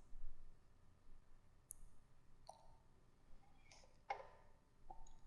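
Near silence with a few faint, scattered mouse clicks.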